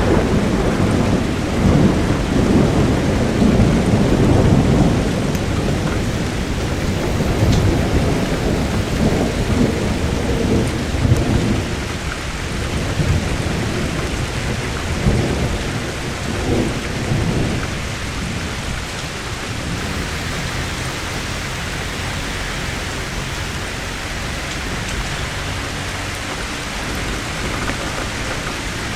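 Steady rain with thunder rumbling low and long through the first half; the rumble dies away after about 17 seconds, leaving an even patter of rain.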